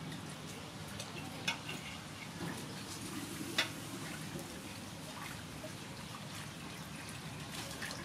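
Water sloshing and splashing softly in a metal basin as hands wash leafy greens, with two sharp clicks about a second and a half and three and a half seconds in.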